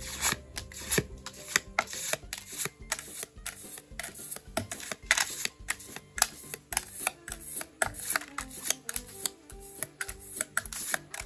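Trading cards being handled and flipped one by one: an irregular run of sharp clicks, taps and short card slides, several a second, over faint background music.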